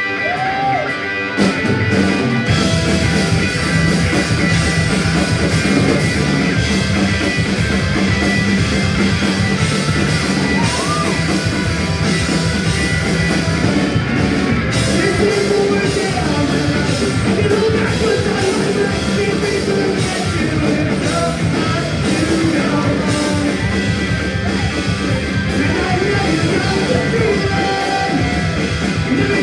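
Punk rock band playing a fast song live: electric guitars, bass and drums with a singer. The full band comes in about a second and a half in.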